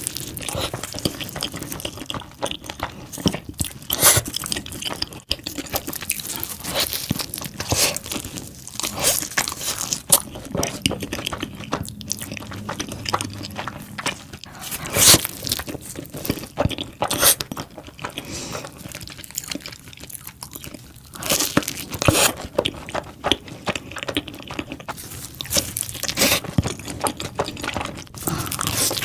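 Mukbang eating sounds: a person biting and chewing pizza and mac and cheese, with many crisp crunches and clicks in quick, irregular succession.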